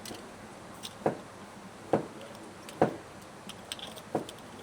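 Four dull knocks about a second apart, with light clicks between them.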